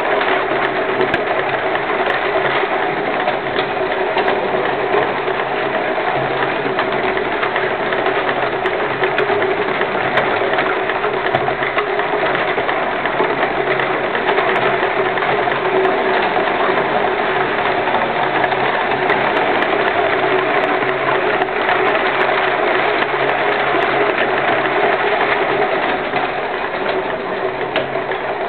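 Miniature compressed-air locomotive running on its track, its air motor and running gear making a steady, fast mechanical clatter.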